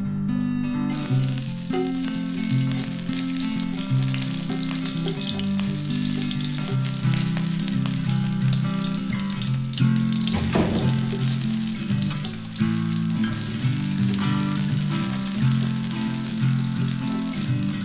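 Food sizzling in hot oil in a pan, starting about a second in, with a brief louder hiss partway through, over acoustic guitar background music.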